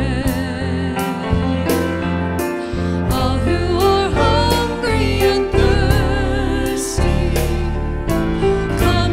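A woman singing a slow communion worship song, with vibrato, to a band with electric bass and a steady beat. The words run 'all who are hungry and thirsty, come and your souls will be fed.'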